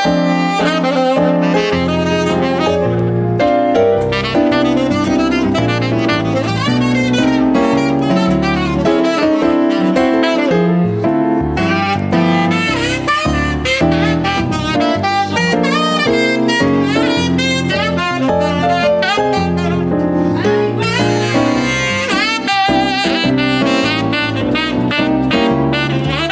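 Jazz instrumental break: a saxophone plays a busy solo line of many short, bending notes over piano and band accompaniment.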